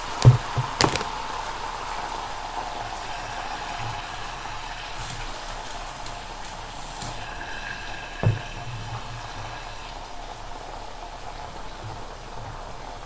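Beaten egg sizzling and bubbling in hot oil in a ScanPan as it is dried out, a steady hiss. There are sharp knocks from the pan being handled on the cooktop, two near the start and one about eight seconds in.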